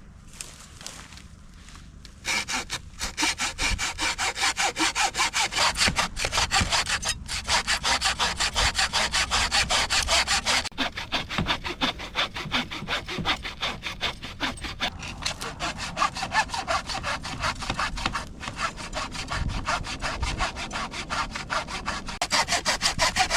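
Small hand saw cutting through a piece of dead wood with rapid, steady back-and-forth strokes. It starts about two seconds in and pauses briefly about halfway through.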